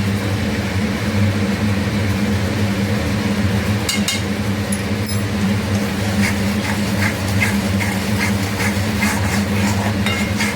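Metal spatula tapping and scraping in a pan of frying masala spices, with a few sharp clicks and a run of light regular taps in the second half, over a steady electric hum.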